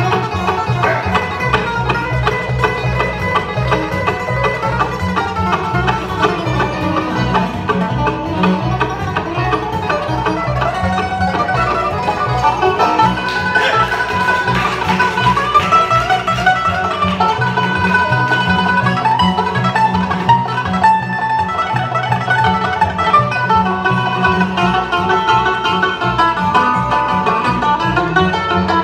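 Live acoustic bluegrass band playing an instrumental: banjo, mandolin and guitar over an upright bass keeping a steady beat, amplified through a PA.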